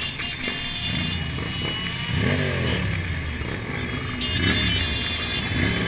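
Several motorcycle engines running in slow traffic, with short throttle blips that rise in pitch about two seconds in, again past the middle and near the end.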